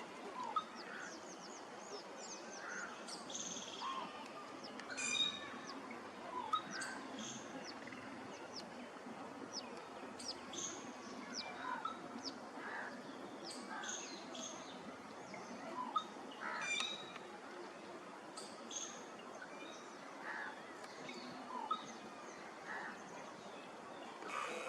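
Birds calling: a scattered mix of short, high chirps and lower, brief calls over a steady outdoor background.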